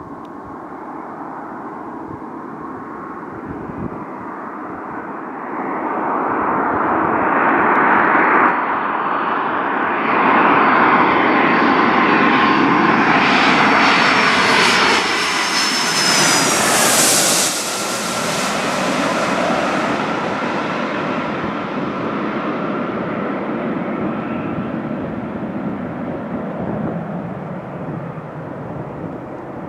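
Boeing 757-200 on landing approach, its Rolls-Royce RB211 turbofans at low power, passing low overhead. The jet noise builds, is loudest with a high whine as the plane crosses directly overhead a little past halfway, drops off sharply, then fades slowly as it goes down to the runway.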